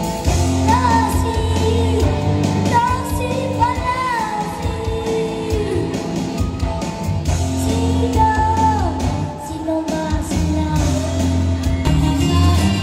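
A child singing a song into a microphone over backing music, amplified through a PA sound system.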